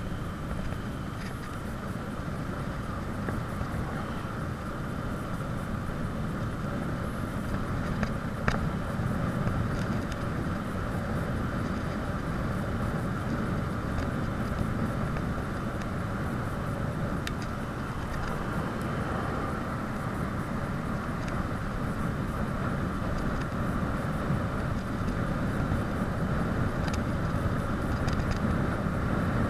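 Steady rush of wind and tyre noise from a bicycle coasting fast downhill on asphalt, with wind rumbling on the microphone. An occasional sharp click is heard, once clearly about eight seconds in.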